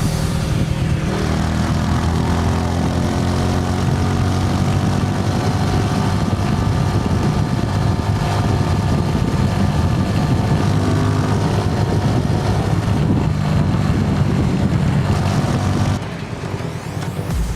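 Suzuki Gixxer SF single-cylinder engine and exhaust running, its note rising and falling a little with the throttle. The sound drops in level near the end.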